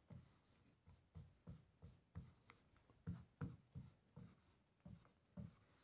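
Marker pen writing on a whiteboard: about a dozen faint, short, irregular strokes.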